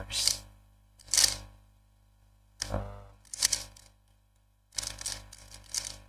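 A 3x3 Rubik's cube being turned by hand: quick plastic swishes and clicks as the layers slide, in about six short bursts with pauses between.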